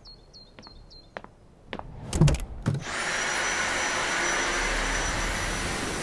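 A few clicks and loud clunks, then a Dyson V8 Animal cordless stick vacuum switches on about three seconds in and runs steadily, a whooshing suction noise with a thin high whine.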